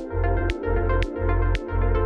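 Background electronic music with synthesizer, heavy bass and a steady beat of about two beats a second.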